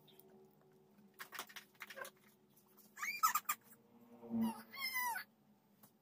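A pet's high-pitched cries: a short one about three seconds in and a longer, wavering one near five seconds. A few light clicks come before them.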